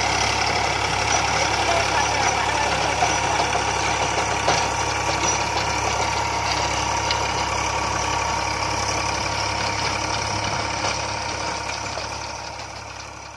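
Eicher 548 tractor's diesel engine running steadily under load while driving a rotavator that churns through the field soil. The sound fades away near the end.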